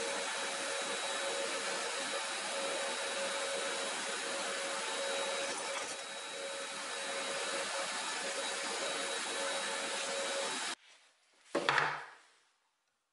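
Hollow-chisel mortiser cutting a mortise in oak while a workshop vacuum hose draws off the chips: a steady motor and suction noise with a hum, which stops suddenly about eleven seconds in. A single sharp knock follows shortly after.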